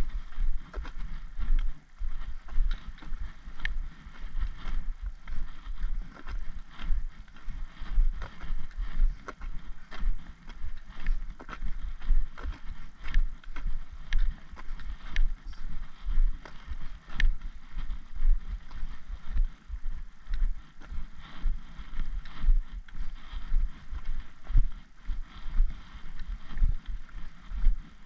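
Walking footsteps on a tarmac lane, a steady stride of about two steps a second heard as low thuds, with faint clicks and rustle in between.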